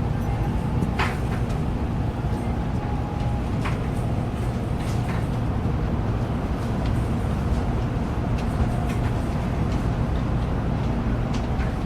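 Shinkansen bullet train running, heard inside the passenger cabin: a steady low rumble with a few faint clicks and knocks.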